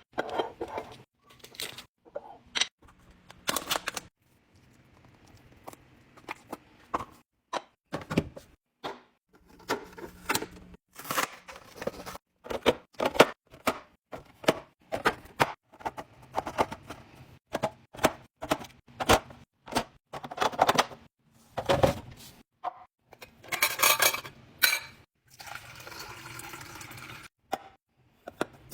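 Food containers, jars and bottles being handled and set down while a refrigerator is restocked: a quick, irregular series of clinks, knocks and thuds.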